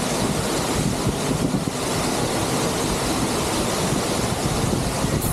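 Steady rushing roar of a large waterfall heard from close behind the falling water, deep rumble and hiss together, unbroken.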